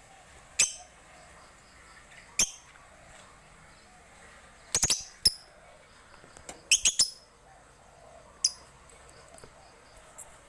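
Lovebird calling with short, sharp, high chirps: single calls about half a second and two and a half seconds in, a quick run of three near five seconds, a tight cluster near seven seconds, and one more near eight and a half seconds.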